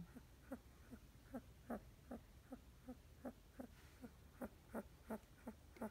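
Soft, short pitched sounds from a dog, repeating in a steady rhythm of about two and a half a second.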